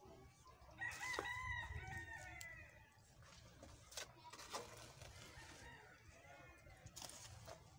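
A rooster crows, one long call starting about a second in and lasting about two seconds, followed by fainter, shorter calls. A couple of light knocks come midway.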